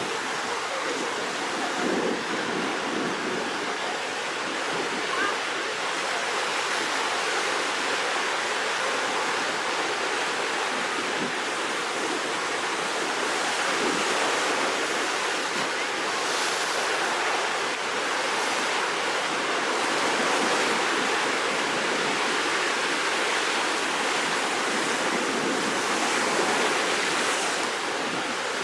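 Rough sea surf ahead of a typhoon: waves breaking and washing in without a break, making a steady rushing noise that swells a little from time to time.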